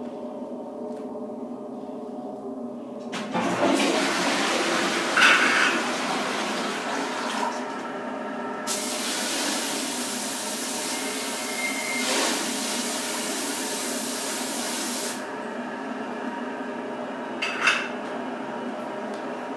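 Toilet flushing: a rush of water starts about three seconds in, gives way to a brighter, steady hiss of water, and eases off well before the end. A steady hum runs underneath, and a short sharp sound comes near the end.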